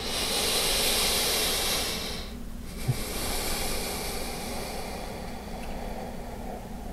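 A person's slow breathing, close to the microphone, while holding a seated yoga forward fold. There is a louder breath of about two seconds, a brief pause, then a longer, softer breath that fades out.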